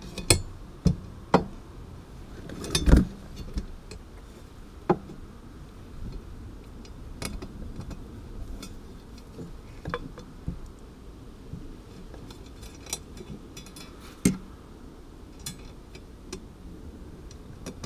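Small metallic clicks and taps of a bolt and cable clamp being handled and fitted by hand to a steel motorcycle pannier rack and its bulkhead plate, with a few sharper knocks. The loudest comes about three seconds in and another near fourteen seconds.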